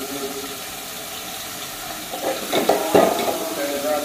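Onion frying in hot oil in a pan, a steady sizzle, with a spatula stirring and clinking against the pan for about a second, starting some two seconds in.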